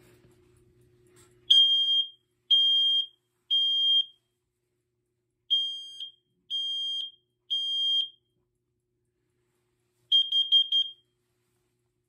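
BRK/First Alert SC9120B smoke and carbon monoxide alarm sounding its self-test on AC power after its test button is pressed. It gives two rounds of three loud beeps, the smoke alarm pattern, then a quick run of short beeps, the carbon monoxide pattern.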